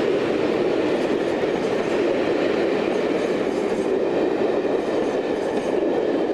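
Passenger coaches of a locomotive-hauled train passing close by at speed: a steady loud rumble and rush of wheels on the rails.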